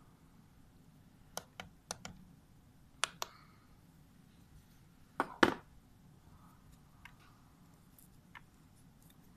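Sharp clicks and taps of small hard objects, mostly in quick pairs, four pairs in the first six seconds with the loudest double knock about five and a half seconds in, then two faint ticks.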